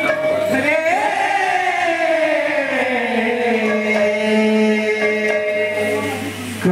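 Devotional kirtan singing: a man sings one long line that rises, glides slowly down and holds a low note, over a steady held instrumental drone.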